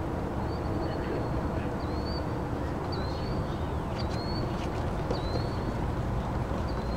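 A steady outdoor rumble with a faint, short rising chirp repeated about once a second.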